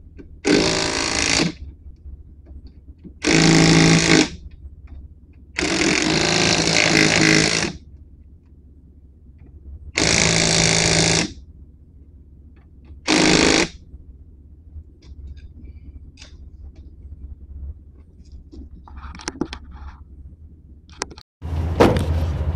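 Cordless impact wrench hammering lug nuts onto a car's front wheel in five bursts of one to two seconds each, with short pauses between them.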